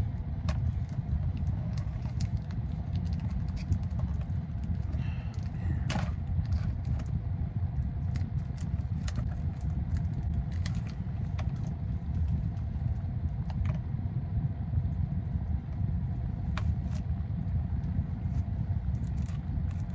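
Steady low rumble underneath scattered small clicks and scrapes as a trading-card box and its wrapping are handled, with a louder crinkle about six seconds in.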